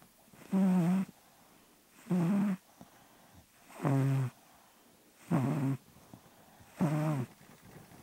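Black-and-white cat snoring in its sleep: five short, pitched snores about a second and a half apart, one on each breath.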